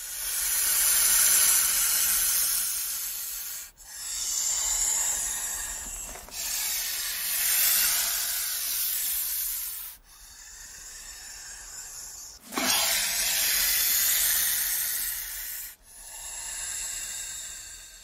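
Snake hissing: a series of about six long, airy hisses, each lasting two to four seconds, with brief pauses between them.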